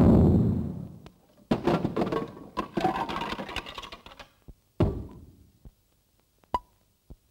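Cartoon soundtrack sound effects: a heavy drum-like boom dying away, then a string of thuds and knocks with a clattering stretch in the middle, another thud near five seconds in, and a few small clicks near the end.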